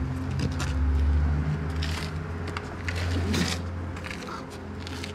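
A low steady droning rumble with a few faint scuffs and rustles on top.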